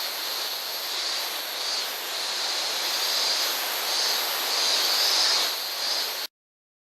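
Rushing water of a gorge stream or waterfall, a steady hiss, with a higher band that swells and fades about once a second. It cuts off suddenly a little after six seconds in.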